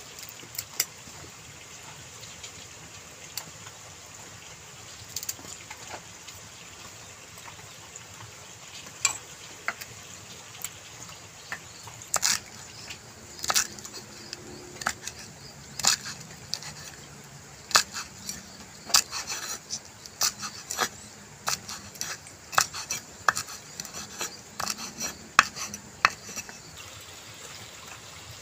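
Kitchen knife cutting green lamtoro (pete cina) pods against a small wooden board, heard as irregular sharp clicks. The clicks are sparse at first and come thick and fast from about halfway through.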